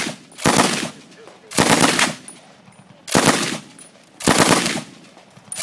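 Browning Automatic Rifle firing on full auto in short bursts of a few rounds each, four bursts about a second apart, with another starting right at the end.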